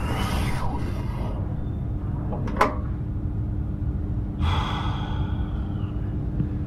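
Steady low machine hum of a sci-fi space-station sound-effect ambience. A sharp click comes about two and a half seconds in, and a hiss of air with a faint, slightly falling whistle runs for about a second and a half from around four and a half seconds.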